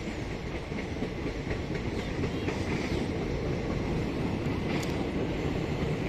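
Passenger coaches of the Pune–Howrah express rolling past, a steady rumble of steel wheels on the rails that grows a little louder about two seconds in.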